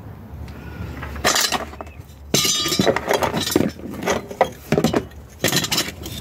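Metal clinking, knocking and scraping as a car boot's latch mechanism is wrenched loose by hand, in a string of irregular sharp rattles.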